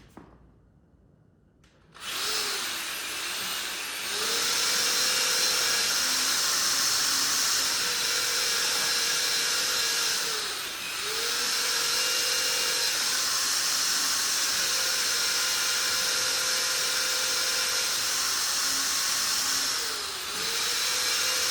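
Electric drill boring into the concrete slab for concrete screws. It starts about two seconds in, runs steadily with a motor whine, and slows briefly three times before speeding back up.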